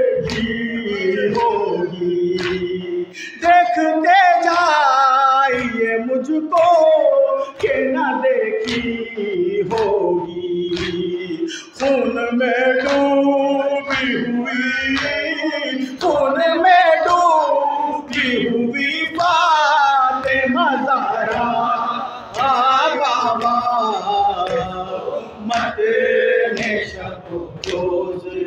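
A man singing a noha, a Shia mourning lament, without instruments, with other men's voices joining in chorus. Sharp slaps of chest-beating (matam) keep an even beat, about one a second.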